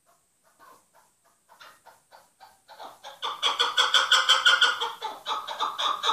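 Chukar partridge calling: short clucking notes, faint and spaced out at first, quicken and grow loud about three seconds in into a rapid, repeated chattering call.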